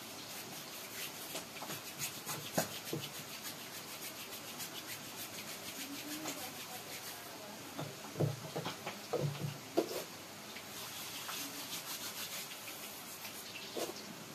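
Hands rolling and stretching flour dough on a wooden board: a soft, repeated rubbing, with a few short thumps a little past the middle as the dough is pressed and slapped down.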